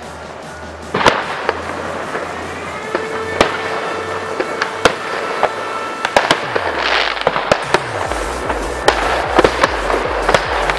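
Fireworks bursting at irregular intervals, with sharp bangs and crackles, over electronic dance music with a steady bass.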